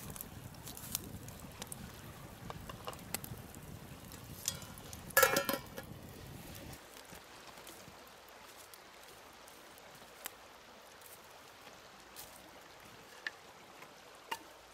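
Wood campfire crackling with scattered sharp pops, and a louder brief clatter about five seconds in.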